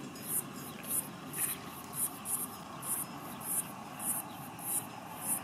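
Insects chirping in a regular pulse about twice a second, over a steady hiss.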